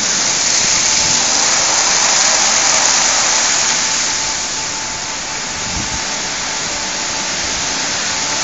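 Automatic rollover car wash running: its rotating brush and water jets sweep over a car, a steady loud rush of spraying water and brush noise that eases slightly about halfway through.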